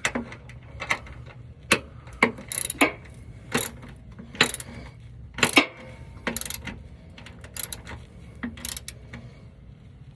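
Ratchet wrench with a 13 mm socket tightening a mounting bolt, clicking in short strokes about once or twice a second and stopping about a second before the end.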